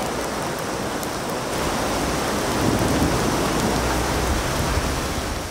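Heavy rain falling steadily, an even wash of noise, with a low rumble swelling underneath around the middle.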